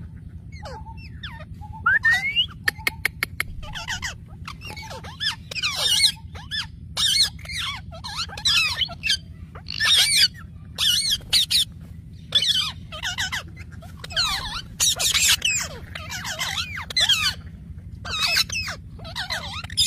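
A flock of small caged parrots chattering: many short, squeaky chirps with quickly wavering pitch, overlapping and coming in bursts, with a quick run of clicks about two to three seconds in. A steady low hum runs underneath.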